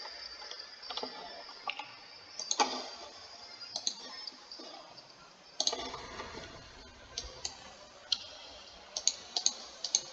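Sharp, irregular clicks from a computer mouse and keyboard, a second or more apart at first and coming in quick succession near the end.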